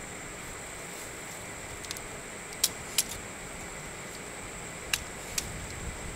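Steady background hiss with a faint, steady high-pitched whine, broken by a few short sharp clicks: two close together near the middle and two more near the end.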